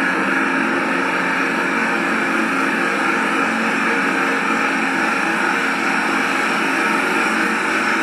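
Steady engine hum of a ship under way, under an even rushing noise of wind and water.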